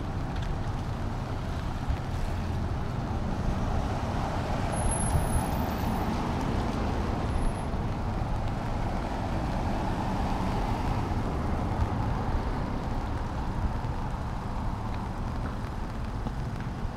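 Road traffic on a wet street, tyres hissing: a vehicle swells past and fades over several seconds in the middle, with wind noise rumbling on the microphone throughout.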